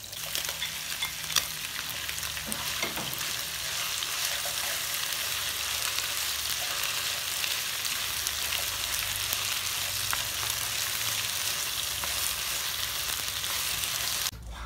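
Pork frying in hot oil in a pan, then stir-fried with sliced green vegetables turned by wooden chopsticks: a steady sizzling hiss with scattered small pops. The sizzling cuts off abruptly near the end.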